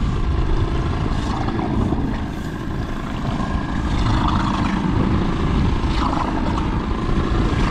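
A boat motor running steadily, with wind rumbling on the microphone.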